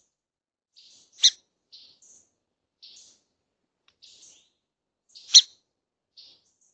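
Small songbirds calling: scattered short, high chirps, with two louder, sharp chip notes, one about a second in and one near the end.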